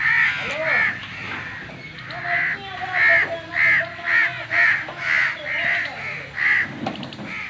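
A crow cawing over and over, about a dozen harsh calls coming roughly two a second.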